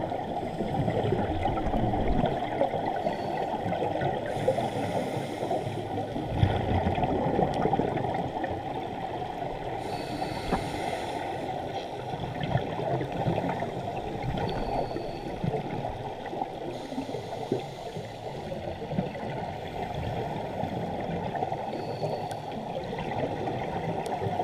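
Muffled underwater rushing and gurgling heard through a GoPro's waterproof housing on a scuba dive, with a brief hiss about every six seconds from the diver's regulator exhaling bubbles.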